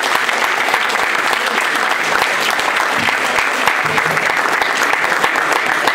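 Audience and panel applauding: steady, dense clapping.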